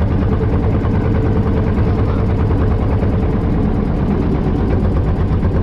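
A small boat's hand-cranked engine running steadily under way, its exhaust firing in a rapid, even rhythm.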